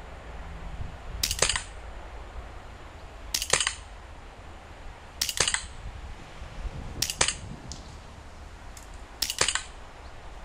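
Remington 1911 RAC CO2 blowback BB pistol firing five single shots about two seconds apart. Each shot is a quick, sharp double crack.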